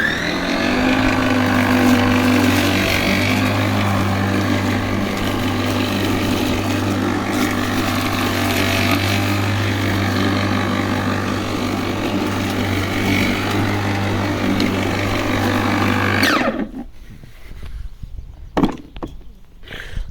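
Worx 40 cm cordless battery lawnmower's electric motor spinning up with a rising whine, running steadily in turbo mode for about sixteen seconds, then cutting out when the start lever is released. A sharp click follows a couple of seconds later.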